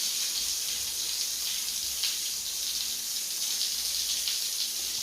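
Water running steadily from an open tap, then stopping abruptly at the very end.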